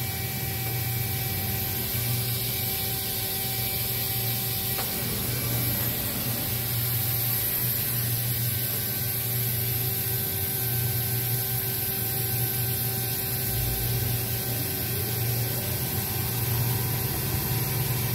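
OKK HM6300S horizontal machining center running as its spindle head traverses along the Y axis: a steady machine hum with several constant tones and a high hiss.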